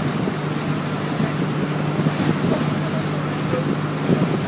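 Pump boat (motorized outrigger bangka) engine running steadily at cruising speed, a constant low hum, mixed with rushing wind and water noise.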